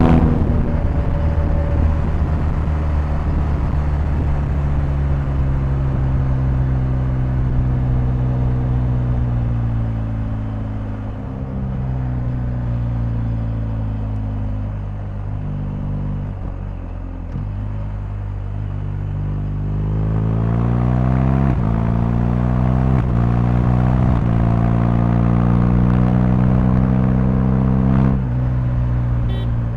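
BMW R1250GS's 1254 cc boxer-twin engine heard while riding. Its note falls over the first ten seconds or so and steps down as the bike slows through the gears, then climbs from about twenty seconds in through several upshifts under acceleration.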